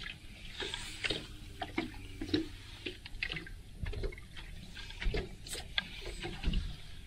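Choppy lake water slapping and lapping irregularly against a boat's hull, with a low wind rumble on the microphone.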